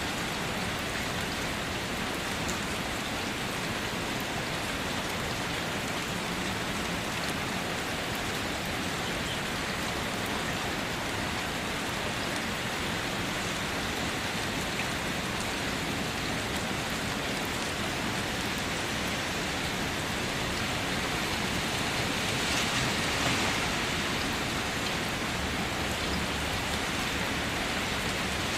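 Steady, even rain, coming in suddenly at the start and swelling slightly about three-quarters of the way through.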